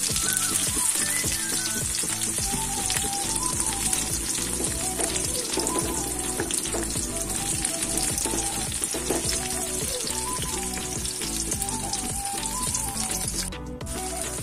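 Sliced onions frying in hot oil in a kadai: a steady sizzle with dense crackling, briefly cutting out near the end.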